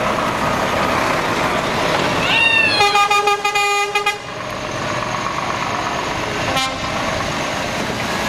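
Truck horn sounding one blast of just over a second, its pitch sliding up as it starts and then holding steady, with a short second toot near the end. Underneath it, trucks are running as they pull away.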